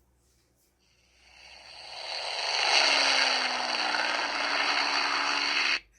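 A recorded airplane engine sound played back through a small greeting-card sound module's speaker. It fades in over about two seconds, holds steady, and cuts off suddenly near the end.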